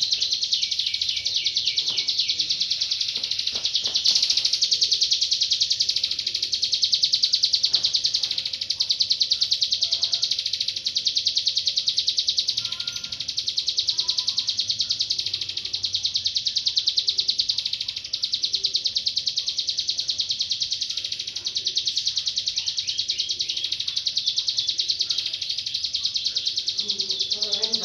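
Ciblek gunung, a prinia, singing a long unbroken high-pitched song of very rapid repeated notes, with only brief dips in loudness.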